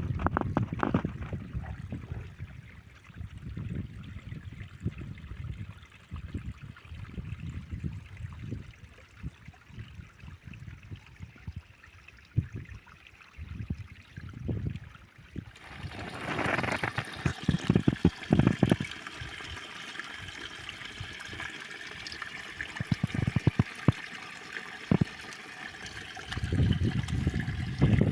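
Water trickling and running, with scattered knocks. About halfway through a steady high hiss comes in.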